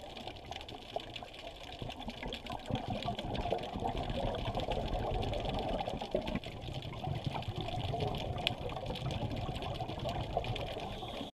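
Underwater ambience picked up by a diving camera: a steady wash of water noise with a dense crackle of small clicks, cutting off suddenly at the end.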